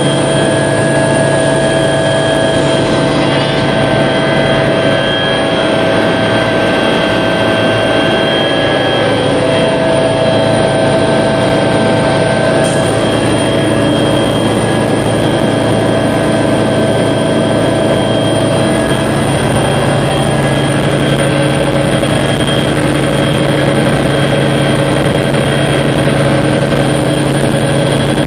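Helicopter engine and rotor noise heard inside the cabin in flight: a steady, loud drone with a low hum and a constant high whine over it.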